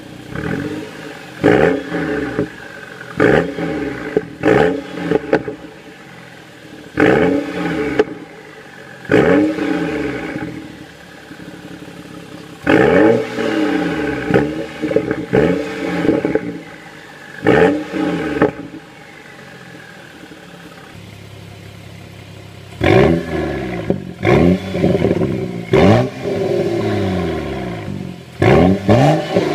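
BMW 135i's N55 turbocharged 3.0-litre inline-six, through a BMW Performance exhaust with the optional Y-pipe in place of the mid-box resonator, blipped in quick short revs from idle. About two dozen blips come in clusters, each rising sharply in pitch and falling back to idle, with a longer stretch of plain idle about two-thirds of the way through.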